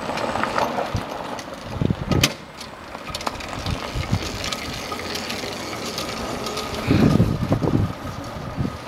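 Scratch-built electric go-kart running along tarmac, its drive rattling mechanically with a faint steady motor whine. There are a few low thuds about two seconds in and again about seven seconds in.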